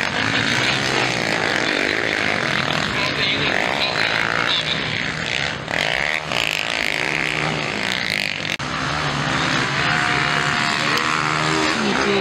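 Motocross bike engines revving up and down as riders race around a dirt track.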